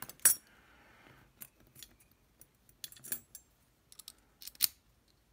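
Small metal clicks and taps from a lock and small tools being handled on a bench: irregular sharp ticks, the loudest about a quarter second in and another near the end.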